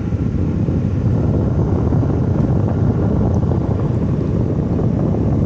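LG 6000 BTU window air conditioner running on cool with its fan on high and the compressor running shortly after starting up: a steady rush of air with a heavy low rumble, like air blowing onto the microphone.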